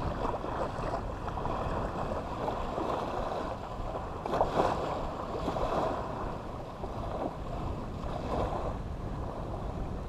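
Small waves washing onto a sandy beach in repeated surges, with an onshore wind rumbling on the microphone.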